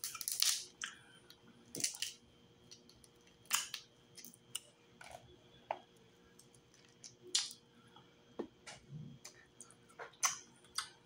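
Crawfish shells being cracked and peeled by hand close to the microphone: scattered sharp crackles and clicks, a cluster at the start and others every second or two.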